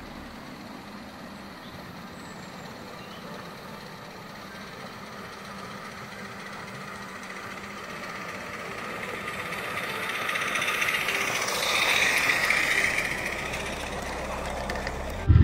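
Small live-steam garden-railway locomotive and its carriages running toward the microphone and past it, a steady hiss and rumble of steam and wheels on rails growing louder, loudest a little after halfway, then easing as the carriages roll by.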